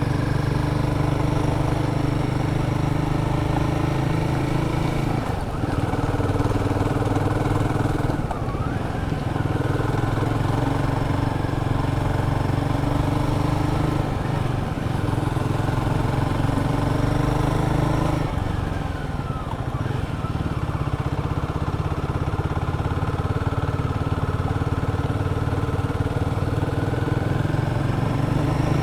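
Royal Enfield Guerrilla 450's single-cylinder engine running under load as the motorcycle rides up a steep climb. The engine note steps up and down several times, with throttle and gear changes.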